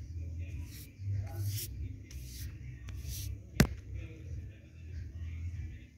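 A hand rubbing over a freshly pasted paper poster, smoothing it down in several brushing strokes, with a steady low rumble underneath. One sharp click about three and a half seconds in is the loudest sound.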